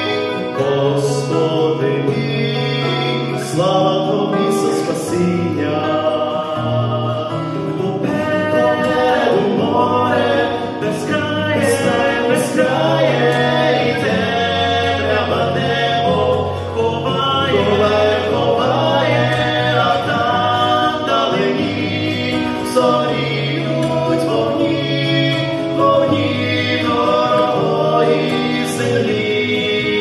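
Two male singers performing a Christian song as a duet through microphones, over a sustained instrumental backing.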